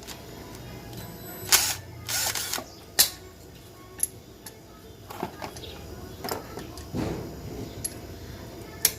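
Scattered sharp mechanical clicks and knocks, with a short rattling burst about two seconds in.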